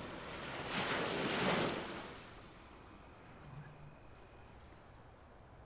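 A gust of wind swells over about a second and dies away, leaving a faint steady outdoor background with a thin high steady tone.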